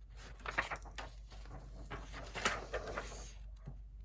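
Soft paper rustling with a few light clicks and taps, as a printed booklet and box contents are handled.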